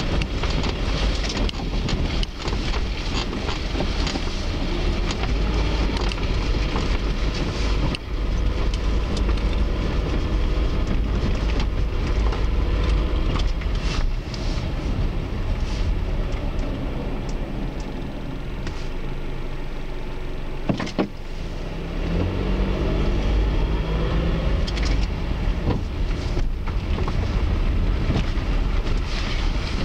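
A motor vehicle running, a steady low rumble with scattered knocks and clicks, and a brief rising whine a little past the middle.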